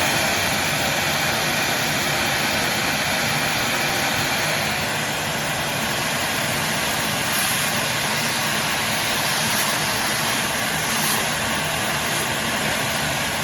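Craftsman CMXEVBE17040 4-gallon, 5.0 peak HP wet/dry shop vac running steadily with a loud, even rushing noise.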